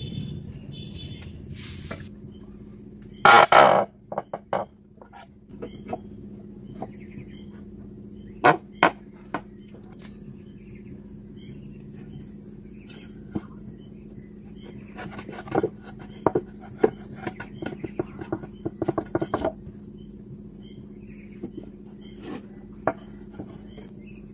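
Knocks and clunks of an electric water-pump motor being handled and set onto a wooden frame's seat board, the loudest knock about three seconds in, with scattered smaller clicks and taps later. A steady high insect drone runs underneath.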